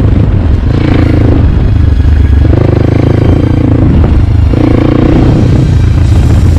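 CrossFire motorcycle engine running under load, the revs rising and falling about three times as the throttle is opened and eased.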